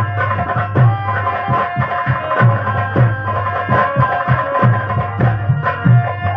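Instrumental interlude of an Indian folk song: a steady rhythm of hand-drum beats under held melody notes.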